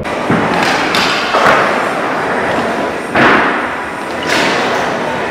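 A stunt scooter and its rider crashing onto a wooden skatepark ramp, followed by a handful of sudden thuds and clatters of scooters on the ramps, each trailing off in the echo of a large hall.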